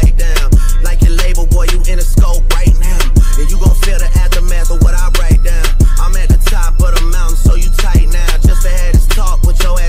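Hip hop track playing, with a heavy bass line and a kick drum hitting about twice a second.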